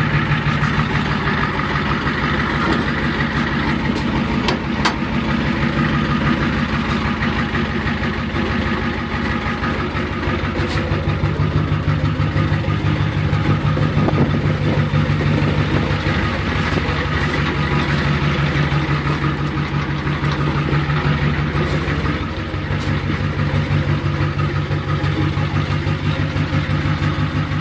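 Ford F350's 7.3-litre V8 diesel idling steadily.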